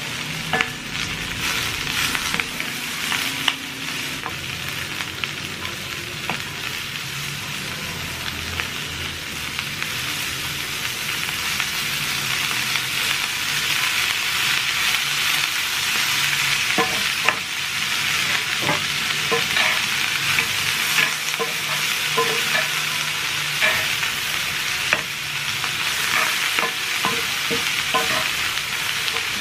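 Stir-fried cabbage, green pepper and carrot sizzling in a hot skillet, with a steady hiss, while being tossed with a wooden spoon and metal tongs. Short clicks and scrapes of the utensils against the pan come more often in the second half.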